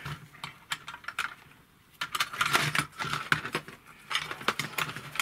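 Hard plastic model parts clicking and clattering as they are handled: a grey kit sprue piece knocking against a plastic toy boat hull while it is test-fitted. The clicks are sparse at first and grow busier from about two seconds in.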